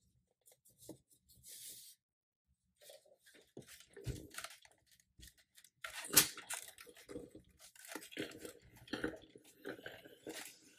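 Soft rustling of denim being handled, then a steam iron set down on a jeans hem on an ironing board with a sharp knock about six seconds in, followed by repeated scraping, rustling strokes as it is pushed over the fabric.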